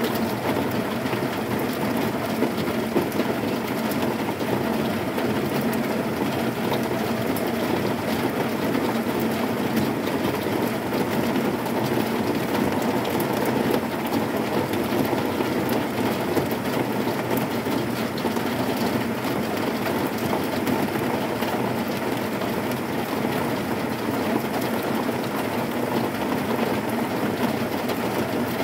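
Heavy rain falling on a zinc sheet roof: a dense, steady patter of drops on the metal, with no thunder.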